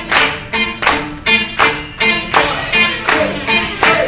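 Live band playing the instrumental opening of a song, with sustained string and guitar notes over a sharp percussive hit on each beat, about every three-quarters of a second.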